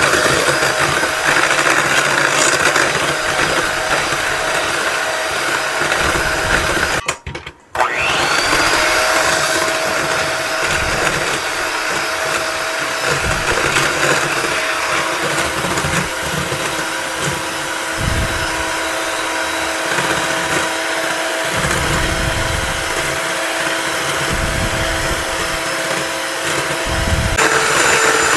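Electric hand mixer running steadily, its beaters whirring through heavy cream in a stainless steel bowl as it whips toward stiff peaks. The motor cuts out for about a second some seven seconds in and starts again, and its pitch shifts near the end.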